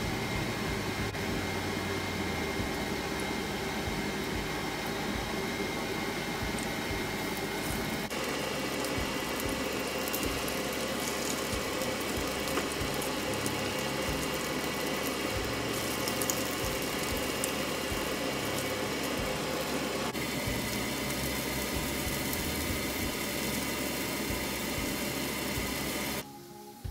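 Coated chicken breasts pan-frying in hot oil in a cast-iron skillet: a steady sizzle with a mechanical hum under it. The sound shifts abruptly about eight seconds and again about twenty seconds in, and cuts off just before the end.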